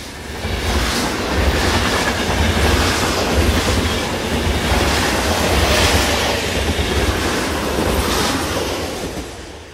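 Freight train rolling past with a heavy low rumble and repeated wheel clatter, swelling in over the first second and fading away near the end.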